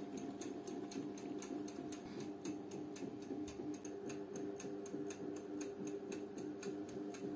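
Several sharp ticks a second, unevenly spaced, over a steady electrical hum; both start and stop abruptly.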